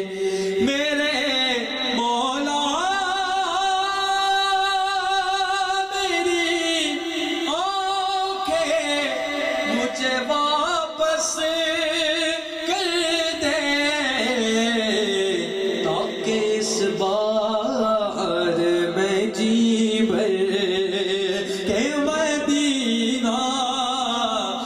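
A man singing an Urdu naat into a microphone, drawing out long held notes that glide up and down, with no clear words.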